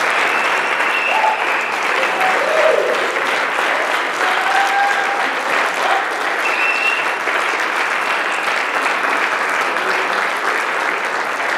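A small audience clapping steadily, with a few short cheers and whoops over the applause.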